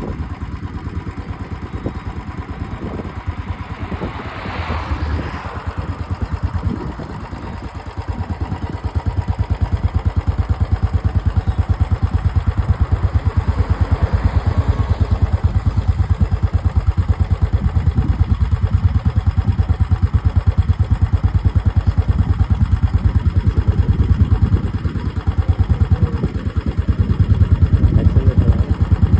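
Royal Enfield Classic 350's single-cylinder engine idling through its exhaust, a steady even beat of firing pulses. It gets clearly louder about eight seconds in and louder again near the end.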